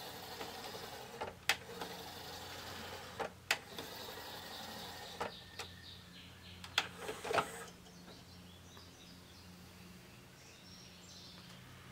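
Technics SL-PD647 five-disc CD changer's carousel tray turning under its motor, with a series of sharp mechanism clicks over the first several seconds. It then falls to a faint steady hum.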